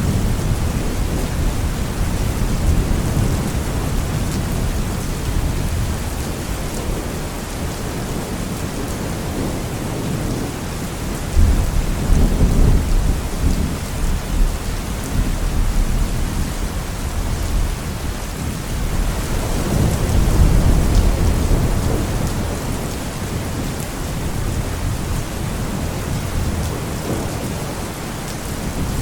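Steady heavy rain with rolling thunder. A thunderclap breaks in suddenly about eleven seconds in and rumbles on for a few seconds, and a second long, deep rumble swells past the two-thirds mark.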